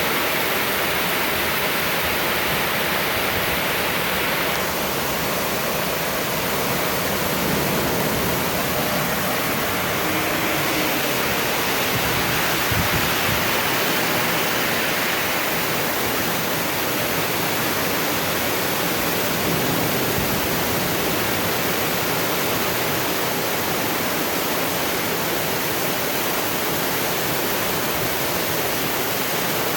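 Heavy rain pouring down in a thunderstorm, a dense, even hiss.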